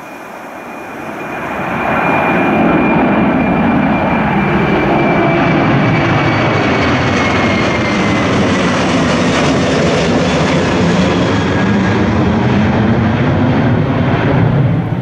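Airbus A330's twin jet engines at takeoff power as it climbs out and passes overhead: the engine noise builds over the first two seconds and then holds loud, with a high whine that slowly drops in pitch as the aircraft goes over.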